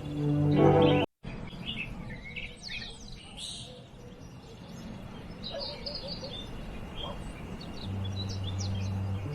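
Small songbirds chirping, short high calls and trills scattered throughout, over soft relaxation music. The music is loudest in the first second, cuts out completely for a moment, and returns near the end as a low steady drone.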